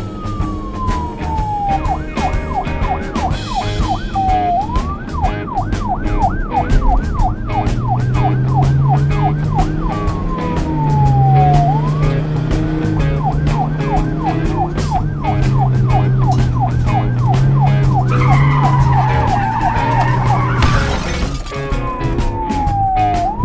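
Police car siren sound effect cycling between a slow falling wail and a fast yelp, over background music with a beat. Near the end comes a squeal and a crash with breaking glass.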